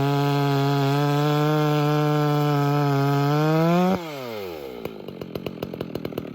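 Two-stroke chainsaw, a G660 Pro clone of the Stihl MS660, running steadily at high revs. Its pitch climbs briefly, then the engine is shut off about four seconds in. It winds down with a falling pitch and a fast ticking that slows as it coasts to a stop.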